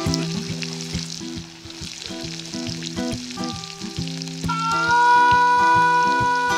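Food sizzling as it fries in a pan, over an acoustic guitar picking a repeating pattern of notes. About four and a half seconds in, a harmonica comes in with a held chord and becomes the loudest sound.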